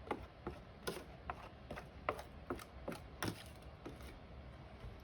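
Irregular light clicks and knocks of frozen food and a utensil being handled between a plastic meal tray and a plate, about a dozen sharp taps that thin out near the end.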